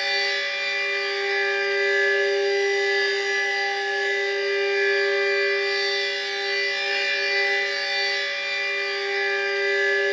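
Super Sirex 15 siren sounding the steady alert signal: one held note with many overtones, no rise or fall in pitch, its loudness swelling and easing gently every couple of seconds.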